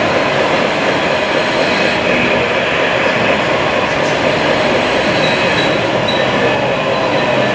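Electric motors and gearboxes of radio-controlled scale construction vehicles whirring and whining steadily, with faint high squeals.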